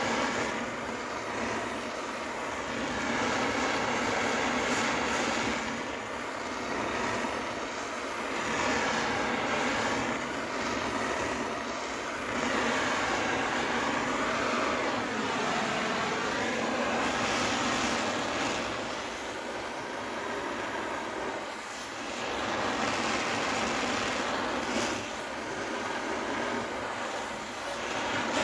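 Oxy-fuel torch flame hissing steadily as it heats a seized tractor axle shaft and hub held under a puller; the rush swells and fades as the flame is moved over the metal.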